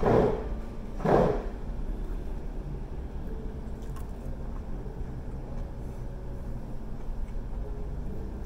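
Steady low rumble of restaurant room noise, with two short, loud puffs of noise about a second apart at the start and a few faint light clicks later.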